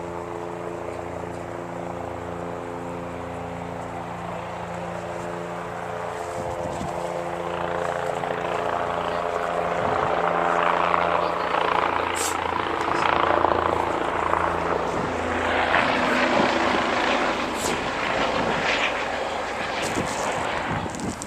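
A bulldozer's diesel engine running steadily, with a louder rushing noise building over it from about eight seconds in and a few sharp clicks.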